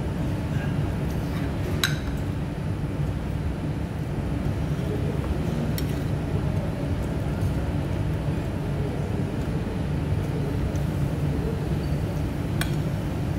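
Metal fork clinking against a ceramic plate while eating, three short clinks about two, six and twelve and a half seconds in, over a steady low background rumble.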